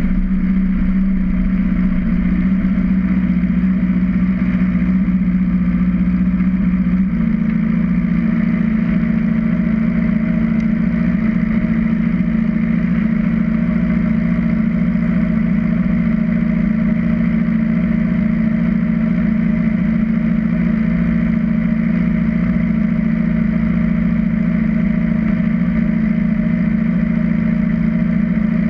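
Motorcycle engine idling steadily, heard close up from on the bike; the idle note shifts slightly about seven seconds in.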